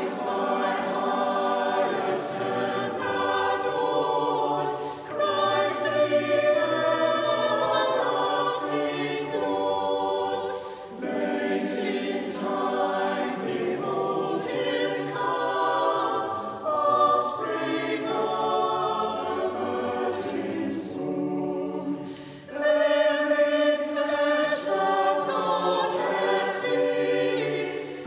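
Mixed church choir singing a Christmas carol, the phrases broken by short pauses about a third and three quarters of the way through.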